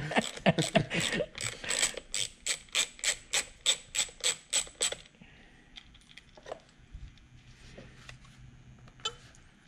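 Small hand socket ratchet clicking in an even run, about four to five clicks a second, as a nut is worked loose on a steering-wheel airbag housing. The clicking stops about five seconds in, and faint handling sounds follow.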